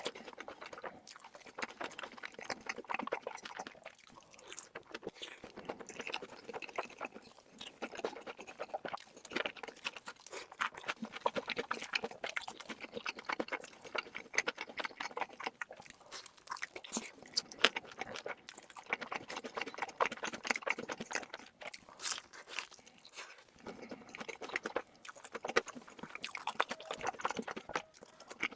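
Eating sounds: a person chewing and crunching food with the mouth close to the microphone, a dense run of quick clicks that goes on without a break.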